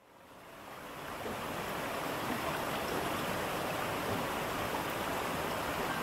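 Waterfall: steady rushing of falling water, fading in from silence over the first second or so and then holding level.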